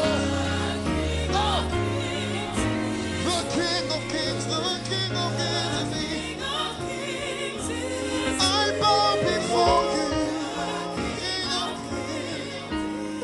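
Live gospel worship music: a band with bass and keyboard chords under singing voices, in a slow praise song.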